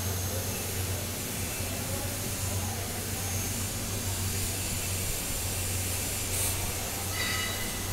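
Steady low hum under a continuous hiss, with a short high-pitched chirp about seven seconds in.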